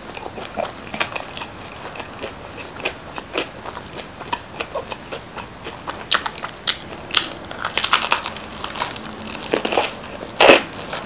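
Close-up chewing and crunching of crisp Chicago deep-dish pizza crust: a run of small crackly crunches, busier past the middle, with a louder bite near the end.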